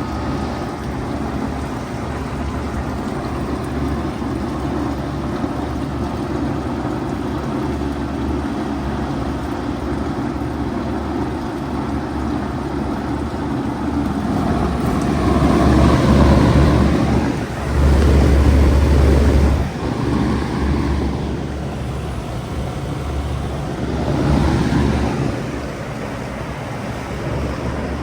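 Bard 4-ton wall-hung heat pump running steadily with a whooshing, rumbling noise that swells louder for a few seconds about halfway through and again briefly near the end.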